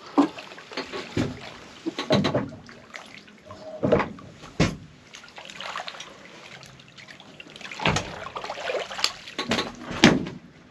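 Water splashing irregularly as a hooked blue catfish thrashes at the surface beside the boat while it is being landed by hand.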